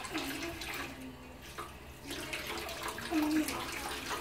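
Faucet running into a stainless steel sink, the stream splashing over hands and rubber balls in the basin.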